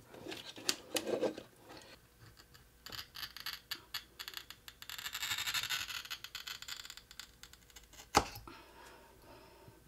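A ceramic wall tile being scored by hand along a straightedge, cutting a line in the glaze so it can be snapped. A few light clicks come first, then a few seconds of dense rapid scratching, then a single sharp knock near the end.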